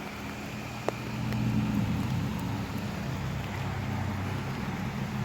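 A motor vehicle's engine running as a low, steady hum that swells about a second and a half in, with a single sharp click about a second in.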